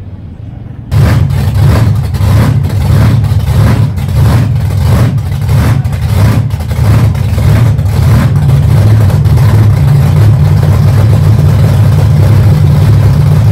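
Monster truck engine running very loud, starting abruptly about a second in, with a throbbing pulse about twice a second at first, then running steadier.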